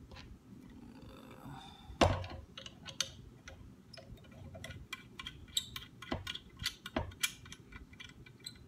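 Clicks and light knocks of small hard parts and tools being handled while a recurve bow is reassembled, with one sharper knock about two seconds in followed by a run of irregular small clicks.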